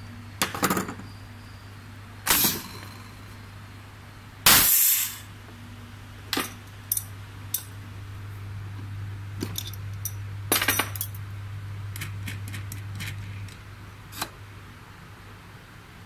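Pneumatic cable stripping machine and metal parts being handled: sharp clicks and clinks with a few short hissing bursts over a steady low hum. The loudest burst comes about four and a half seconds in, and the hum stops near the end.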